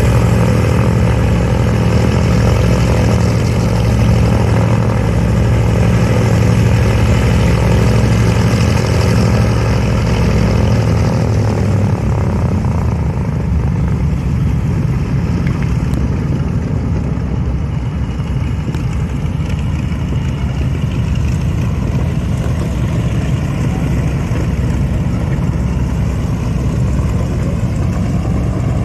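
The Wright R-2600 twin-row radial engines of a B-25 Mitchell bomber running on the ground. A steady droning hum gives way about eleven seconds in to a rougher, lower rumble.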